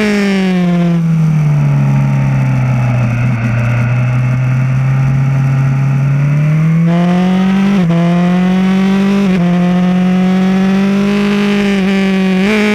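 BMW S1000R's inline-four engine heard onboard over wind rush. The revs fall in the first two seconds and the engine holds a low, steady note as the bike slows through a bend, then the revs climb again with two short hitches and settle into a steady cruising note.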